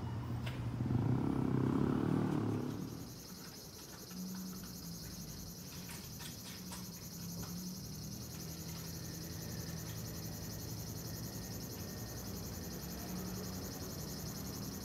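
A passing motor vehicle fades out over the first few seconds. Then a steady, finely pulsing high insect trill sets in and carries on, over a low steady hum, with a few brief clicks about six seconds in.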